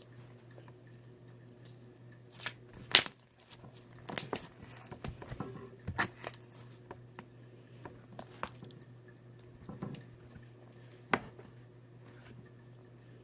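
Hands kneading and stretching sticky slime: scattered small squishy clicks and pops, with a few louder snaps, over a low steady hum.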